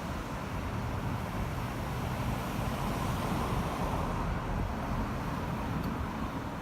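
Steady vehicle rumble with wind buffeting the microphone, swelling slightly about three seconds in.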